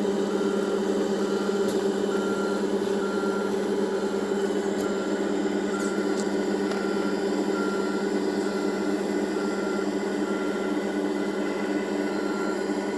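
Electronic sound module of a radio-controlled MAN truck playing a simulated diesel engine running steadily, with a reversing beeper sounding at an even pace over it.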